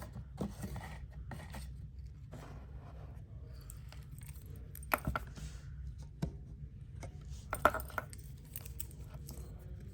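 Clicks, taps and scrapes of a Casio G-Shock Frogman watch being handled and turned over, with two sharper knocks, one about halfway through and another a few seconds later, over a steady low hum.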